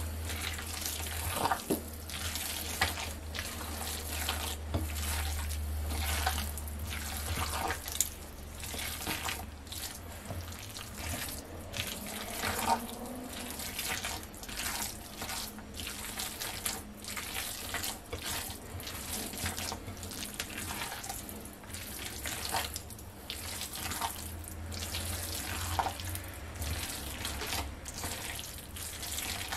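Raw chicken mince, mixed with chopped vegetables and a little added water, squelching as it is kneaded by hand in a glass bowl: irregular wet squishes.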